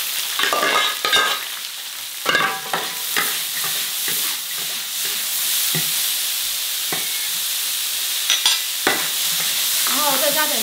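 Shredded squash sizzling in hot lard and oil in a large wok, stir-fried with a metal spatula. The spatula scrapes and clanks against the wok every second or so over a steady sizzle.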